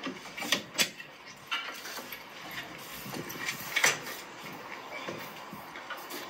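A pull-out cooler drawer being pushed shut on its metal drawer slides, rattling and clicking as it closes and latches. A sharper knock comes just before four seconds in.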